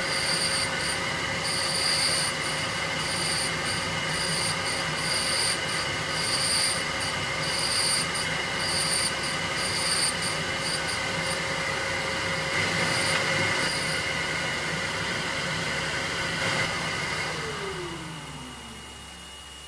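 Surface grinder wheel being dressed to a 30-degree taper by a single-point diamond on a hand-traversed angle dresser: the steady whine of the running spindle under a high grinding hiss that comes and goes with each pass of the diamond. Near the end the grinder is switched off and its whine falls in pitch as the wheel spins down.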